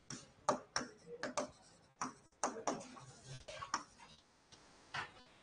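Irregular run of short, sharp taps and clicks of writing and drawing, thinning out near the end.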